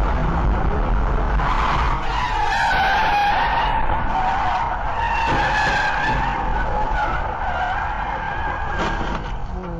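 Vehicle tyres squealing in a long skid: a wavering high-pitched squeal that starts about two seconds in and lasts most of the rest, over a low road rumble.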